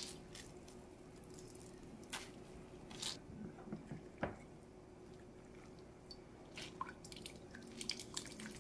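Handfuls of salted, julienned cucumber being wrung out by hand: faint wet squishes and scattered drips and splashes of cucumber water falling into a glass measuring cup.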